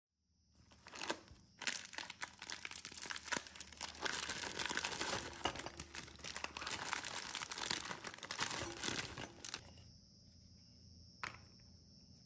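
Plastic Oreo cookie wrappers crinkling and tearing as packets are opened and the cookies tipped out into a glass bowl. The rustling stops about ten seconds in, leaving a faint steady high tone and a single click near the end.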